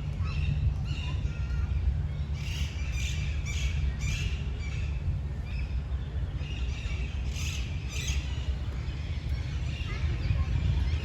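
Several birds calling and chirping over a steady low rumble of wind on the microphone. There are clusters of louder calls about two to four seconds in and again around eight seconds.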